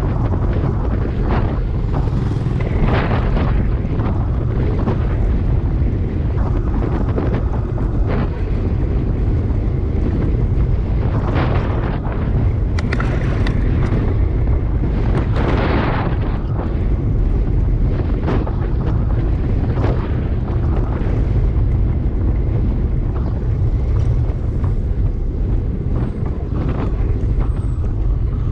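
Wind buffeting the microphone of a camera on a moving bicycle, a steady low rumble, with a few short louder bursts around the middle.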